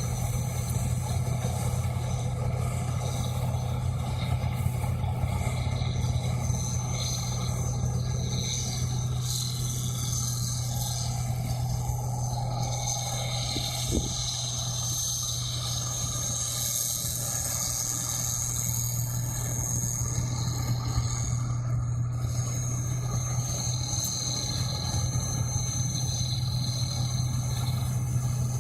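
Rice combine harvester's engine running steadily with a low drone, a thin high whine over it, and a single short click about halfway through.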